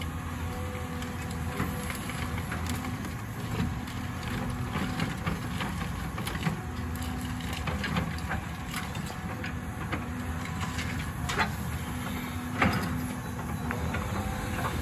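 Caterpillar excavator's diesel engine running steadily while it drops demolition debris into a steel dump trailer, with scattered knocks and clatter of wood and scrap landing. The sharpest knocks come about eleven and twelve and a half seconds in.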